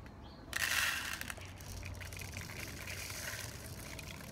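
Small plastic beads poured into a mixing bowl, rattling. A loud rush of beads comes about half a second in, then a thinner patter of clicks.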